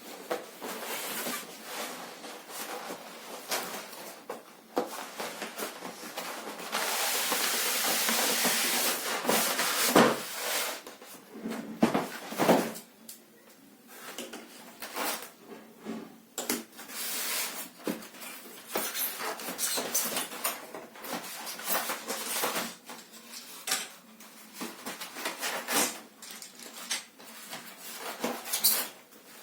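Unboxing a toy train set: cardboard packaging and plastic parts handled, with irregular clicks, knocks and scrapes and a longer stretch of steady rustling about seven to ten seconds in.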